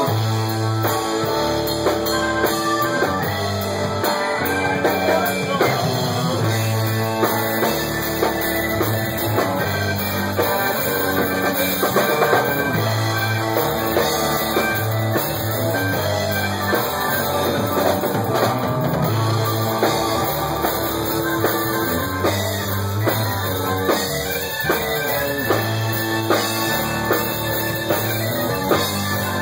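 Rock band playing live: electric guitar through an amplifier over a drum kit with cymbals, with a steady driving bass line.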